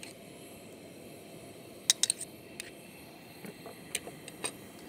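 A few light clicks and taps of a spoon against a bowl and pan as butter is added, the sharpest about two seconds in, over a low steady background hum.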